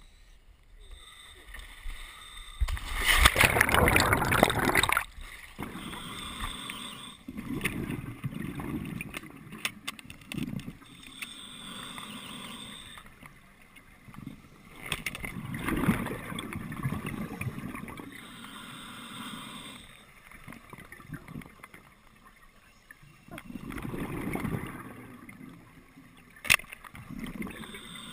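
A loud rush of splashing water about three seconds in as a diver enters the water. Then a scuba diver breathes through the regulator underwater: a hissing inhale and then a long bubbling exhale, repeating about every eight seconds.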